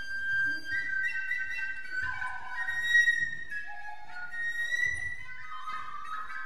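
Solo recorder playing a melodic line of held and short high notes with leaps, sharply accented about three seconds in.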